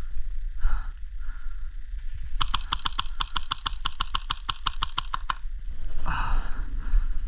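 Krytac LMG airsoft replica with a Heretic Labs Inferno HPA engine firing a full-auto burst of about three seconds: a fast, even string of sharp clicks, about eight a second. A brief rustle follows.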